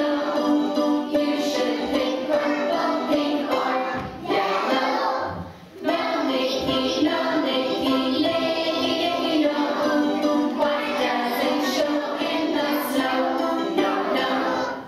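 A group of young children singing a song with musical accompaniment, with a short break about five seconds in.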